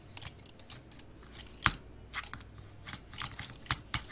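Hard plastic clicks and snaps of a Transformers Bumblebee action figure's joints and panels being moved by hand: a scatter of small irregular clicks, with one louder snap a little under two seconds in.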